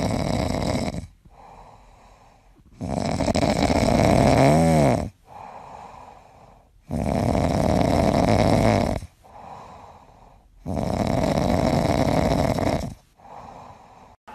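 A sleeping grey cat snoring: four long, loud snores of about two seconds each, roughly every four seconds, with much quieter breathing between them. The second snore carries a brief whistling tone.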